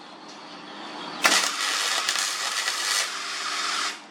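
Electric welding arc struck about a second in, crackling and hissing steadily for almost three seconds, then cut off abruptly.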